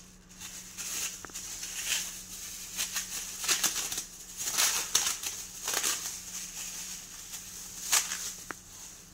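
Thin disposable plastic gloves rustling and crinkling in irregular bursts as they are pulled on and the fingers are worked into them.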